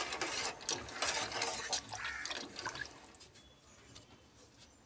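A spoon stirring shell pasta in a stainless steel pot of water, with clicks of the spoon against the pot and water sloshing. The sounds die down about three seconds in, leaving faint water noise.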